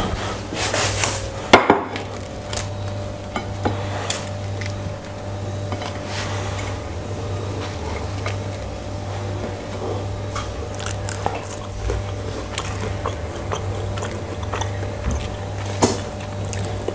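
Laptronix waffle maker cooking batter with the lid shut: a steady hiss with many small crackles, over a constant low electrical hum. A sharp knock comes about a second and a half in, and another near the end.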